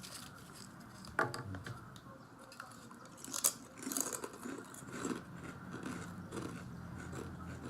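A person biting into kettle-cooked potato chips and chewing them. There is a sharp crunch about three and a half seconds in, then steady chewing at about two chews a second.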